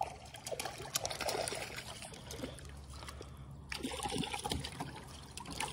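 A hooked bass splashing and thrashing at the water's surface as it is reeled in, a run of small irregular splashes.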